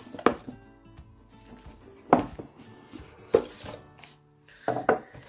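Soft background music with about five sharp taps and knocks of a cardboard box being handled, its lid lifted off, with two quick knocks close together near the end.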